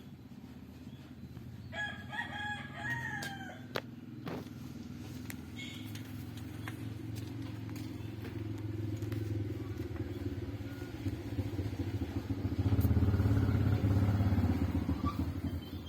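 A rooster crows once, about two seconds in, a single drawn-out call that falls at the end. A low engine drone then builds and is loudest near the end, like a motor vehicle passing close by.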